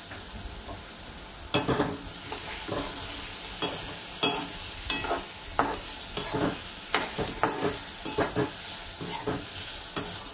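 Metal spoon scraping and knocking against a kadai as diced potatoes are stirred, over a steady sizzle of the potatoes frying in oil with a little water. The spoon strokes start about one and a half seconds in and come about one to two a second.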